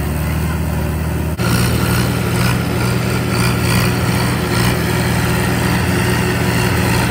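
Diesel farm tractor engines, a Swaraj 744 FE and Mahindra 575 DIs, running hard under heavy load as they pull a stuck sugarcane trolley through mud. The engine sound jumps louder abruptly about a second and a half in.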